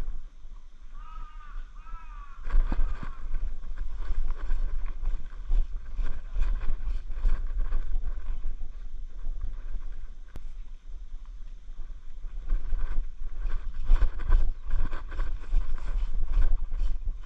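Low rumble of wind buffeting the microphone, with a run of irregular rustles, scuffs and knocks of movement through the field that starts about two and a half seconds in.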